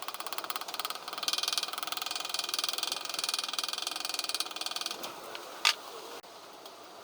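Subaru EJ207 flat-four engine running, heard close, with a rapid, even ticking for about five seconds. A single sharp click comes near the end, and then the sound drops suddenly to a quieter steady hiss.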